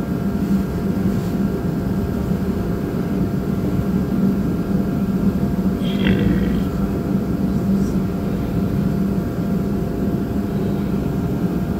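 Steady low mechanical hum with a few thin steady tones above it. About six seconds in, a newborn piglet gives a brief high squeal.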